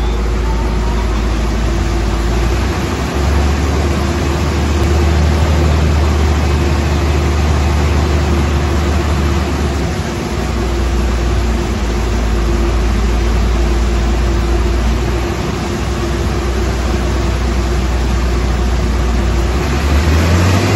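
2012 Mitsubishi Fuso truck's diesel engine running steadily under load on a truck chassis dynamometer, its rear tyres driving the rollers. The deep engine drone steps up and down in pitch a few times as the speed is held.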